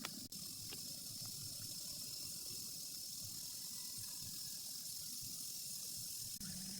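Steady rain falling as an even, continuous hiss, with a faint steady high tone running through it. It breaks off for an instant twice, once just after the start and once near the end.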